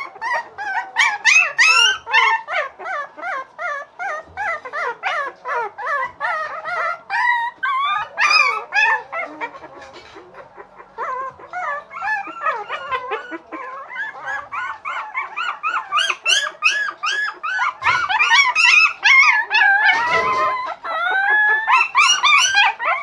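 Young puppies yelping and howling in high, wavering cries, one call after another with hardly a break; the cries thin out for a moment about halfway through.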